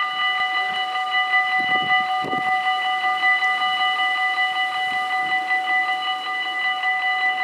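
Dutch automatic level crossing's warning bells ringing steadily, a rapid bright ringing, as the half barriers lower. This signals an approaching train.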